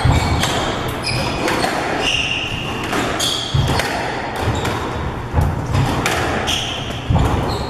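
Squash rally: the ball struck hard by racquets and smacking off the walls again and again, with short high squeaks of court shoes on the wooden floor and thudding footfalls.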